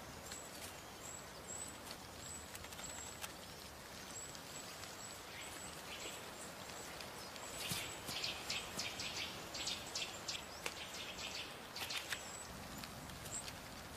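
Faint natural forest ambience with scattered short, high chirps and clicks of small birds, thicker in the second half.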